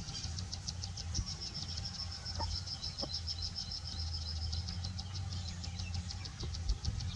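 Outdoor ambience: a fast, high-pitched pulsing trill, about nine pulses a second, runs steadily over a low steady hum, with a few faint clicks.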